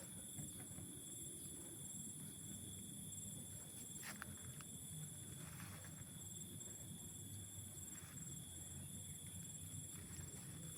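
Faint forest ambience: a steady high-pitched insect chorus, with a few soft footsteps on the trail, the clearest about four seconds in.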